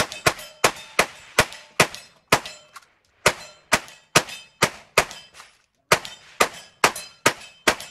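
Replica M1862 .58-calibre Gatling gun being hand-cranked, firing a steady string of single shots at about two and a half a second. The string has two brief pauses, about three seconds in and again between five and six seconds in.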